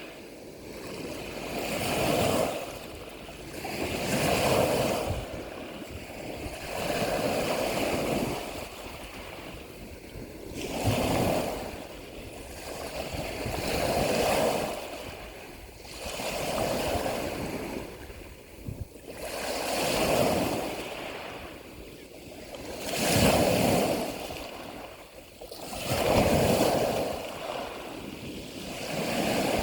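Ocean waves washing in and drawing back, each swell of surging water rising and falling about every three seconds.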